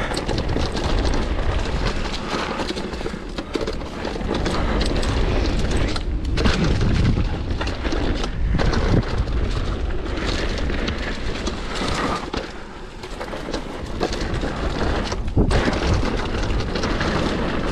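Downhill mountain bike running over a rough dirt trail: tyres crunching, frame and chain rattling with frequent knocks, over a heavy rumble of wind on the microphone.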